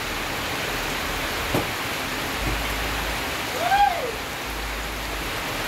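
Steady, even rain falling. About three and a half seconds in, one short call rises and falls in pitch, and a faint sharp tap comes a little after one second.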